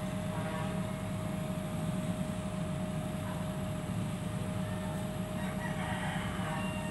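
An engine runs steadily with a low rumble, and a rooster crows near the end.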